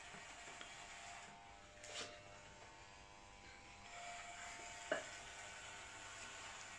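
Corded electric hair clippers buzzing faintly as they shave hair off a head, with two sharp clicks: one about two seconds in and a louder one about five seconds in.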